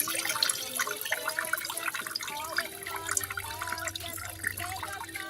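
Water splashing and dripping in quick, irregular splashes as steamed spinach leaves are rinsed in water.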